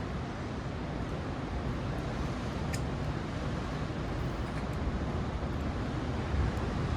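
Steady rushing noise of wind and surf, heaviest in the low end, with a few faint clicks.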